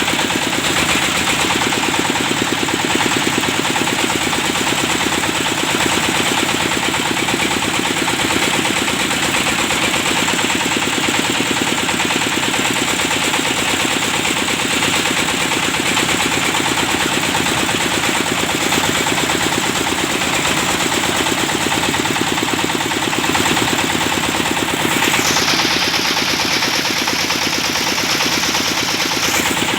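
Engine of a well-drilling rig running steadily, with a rapid, even pulsing beat.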